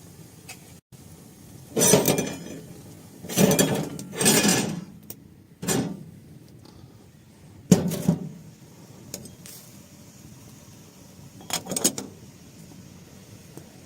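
Dishes and utensils being handled: about six separate short clattering, scraping strokes at irregular intervals.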